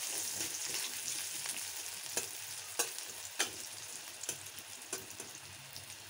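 Chopped onion sizzling in hot oil in a black kadai, at the light first frying, while a metal spatula stirs it with several sharp clicks and scrapes against the pan. The sizzle slowly fades.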